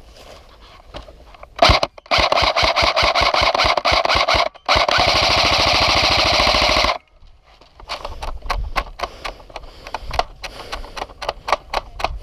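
Airsoft gun firing on full auto: a rapid burst of shots about two seconds in, then after a brief pause a longer, faster continuous burst that stops suddenly. Scattered single cracks follow near the end.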